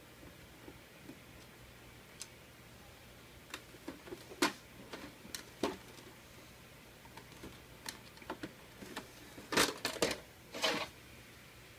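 Irregular clicks and clacks of a DVD/VCR combo's plastic and metal casing and screws being handled during disassembly, with a louder burst of clattering near the end.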